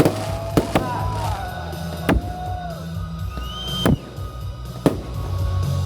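Festive fireworks display: about six sharp bangs of bursting shells at irregular intervals, with music playing underneath.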